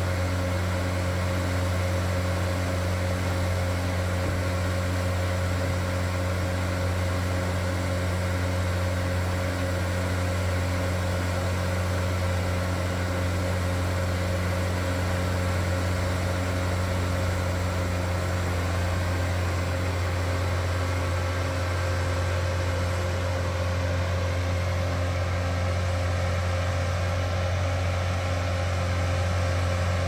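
Blaw-Knox PF400-A asphalt paver's John Deere four-cylinder turbo diesel running steadily, a constant deep drone.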